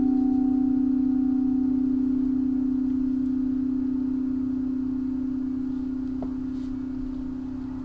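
A singing bowl ringing on after being struck: a steady low hum with a fainter higher overtone that dies out about two seconds in, the whole tone slowly fading away.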